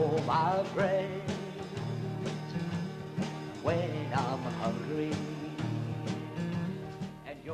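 Country-style song: a voice singing over instrumental backing with a steady beat.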